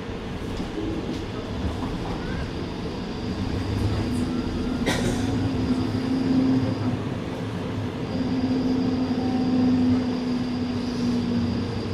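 Flexity tram running on rails, its electric drive giving a steady low hum and a thin high whine over the rolling noise. The whine drops out about seven seconds in and returns a second later. A single sharp click sounds near five seconds.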